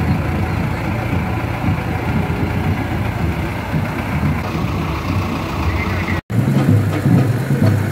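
Large diesel farm tractor engine running at low speed as it tows a parade float close by, a steady low hum. The sound drops out for an instant about six seconds in.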